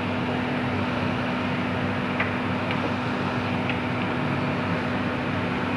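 Sliced vegetables sizzling in hot oil in a wok: a steady frying hiss over a constant low hum, with a few faint clicks.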